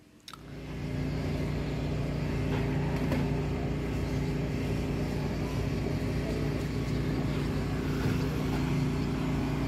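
Outdoor street ambience dominated by a steady engine hum from a motor vehicle, starting suddenly just after the start.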